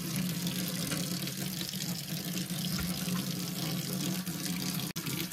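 Water running from a tap into a stainless steel kitchen sink, splashing steadily as the basin is scrubbed, with a momentary break near the end.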